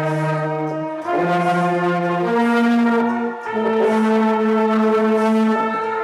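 Children's orchestra playing slow, long-held chords, changing chord about once a second and then holding the last one for over two seconds.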